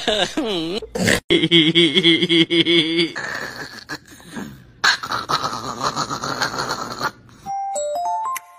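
Brief laughter at the start. Then a held, wobbling pitched sound and a stretch of hiss, and near the end a light tinkling tune of bell-like notes begins.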